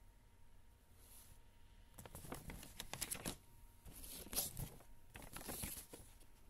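A glossy paper CD booklet being unfolded and handled, rustling and crinkling in irregular bursts of crackles from about two seconds in.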